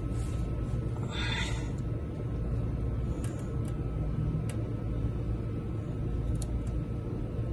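Steady low background hum, with a short scraping rustle about a second in and a few faint light clicks of a metal oil-filter wrench being fitted to the chopper's oil filter.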